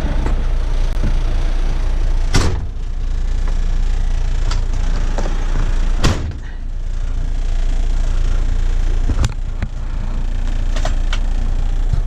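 Volvo semi truck running with a steady low rumble, heard from inside the cab. Three sharp knocks or clunks come a few seconds apart.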